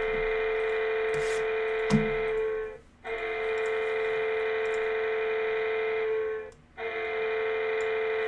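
A loud electronic buzzer tone holding one steady pitch, sounding in long blasts of about three and a half seconds. It breaks off briefly about three and six and a half seconds in. There is a single sharp knock about two seconds in.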